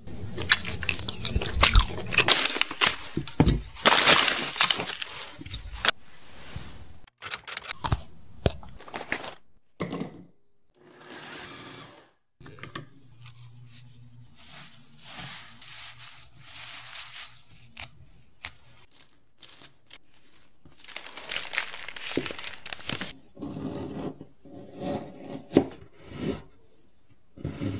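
Close-up food-preparation sounds, with no music or speech. Loud crinkling and crunching for the first several seconds, then scattered clicks and scrapes. Near the end a knife chops a block of white chocolate on a wooden board in repeated strokes.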